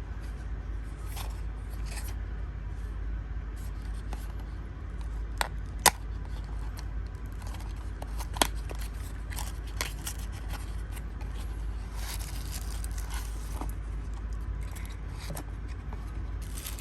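Cardboard knife box being opened and its contents handled: scattered clicks, scrapes and rustling, with two sharp clicks about six and eight and a half seconds in and a longer rustle around twelve seconds.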